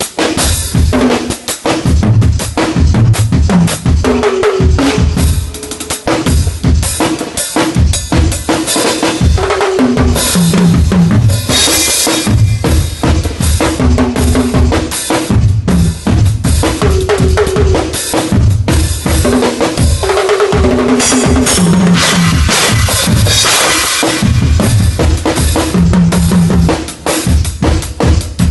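Drum kit played continuously: a steady groove of bass drum and snare with rimshots, plus tom and cymbal hits, with heavier cymbal washes about eleven seconds in and again around twenty-two seconds in.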